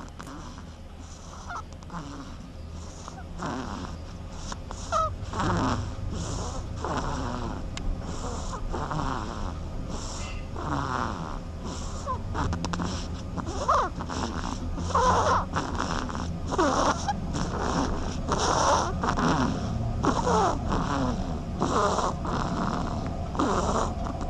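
Snoring: a rapid, irregular run of short squeaky sounds that slide up and down in pitch, several a second, over a steady low hum.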